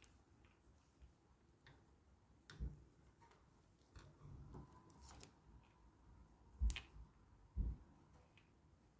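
Handling noise from knitting by hand: a few faint, scattered clicks and soft knocks as yarn is worked onto a wooden knitting needle. The sharpest click comes about two-thirds of the way in.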